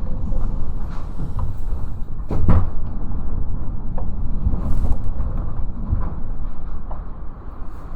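Strong typhoon wind buffeting the microphone with a heavy, steady low rumble, with a few knocks and rattles; the loudest comes about two and a half seconds in.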